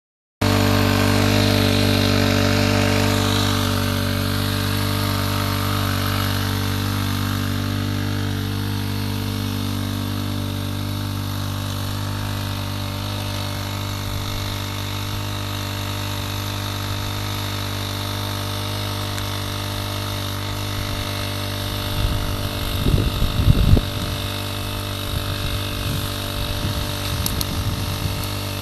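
A pressure-washer (doorsmeer) machine runs steadily at one constant pitch while it drives a herbicide spray onto grass. A few low bumps come near the end.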